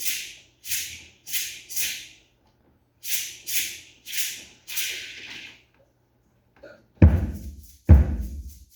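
Percussion passage: a rattle shaken in short separate strokes, about eight of them in two groups, then two loud drum strikes near the end that ring on.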